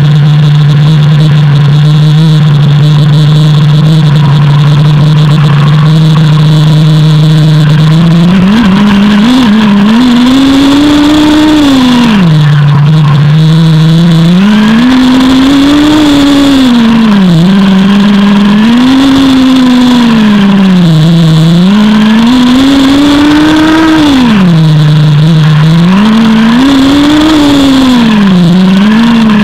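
Nitro RC buggy's small glow-fuel engine, close up on the car. It idles steadily for about eight seconds, then revs up and drops back again and again, about seven rises and falls in pitch as it drives.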